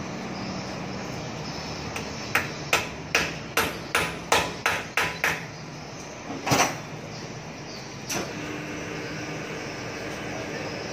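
Balance weight being hammered onto the rim of a truck/bus wheel on a wheel balancer: a run of about nine sharp metal taps, roughly three a second, followed about a second later by a single heavier thump.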